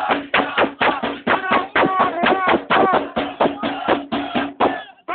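Crowd of football supporters chanting in unison over a fast percussion beat, about four strokes a second.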